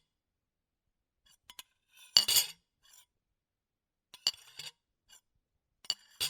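Metal spoon scraping and clinking on a ceramic plate, as when eating from it, in short separate strokes with silence between. A few faint clicks come first, then three louder strokes about two seconds apart, each with the plate ringing briefly.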